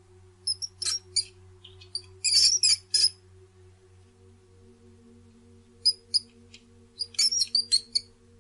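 A bird calling in short, high, sharp chirps that come in four quick clusters of several notes each, over a faint steady low hum.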